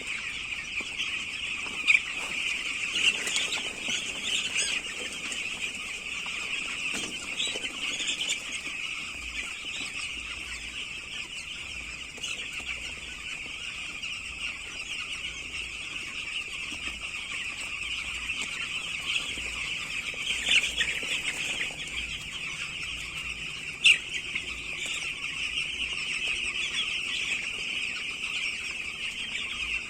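A large flock of broiler chickens calling at once in a dense, steady, high-pitched chorus, with a few brief louder sounds standing out, the sharpest near the start and about three quarters of the way through.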